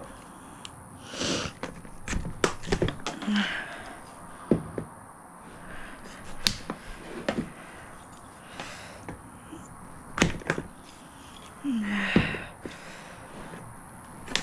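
Heavy shears cutting through the rim of a rigid white plastic bucket: an irregular string of sharp snaps and cracks as the plastic gives, with softer scraping and handling sounds in between.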